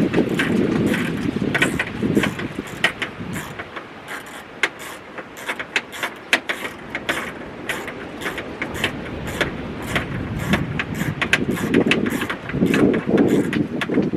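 Screw being driven into the door handle mount inside a car door with a screwdriver: a long run of small, irregular metal clicks and scrapes, several a second. A low rumble sits under it for the first few seconds and again near the end.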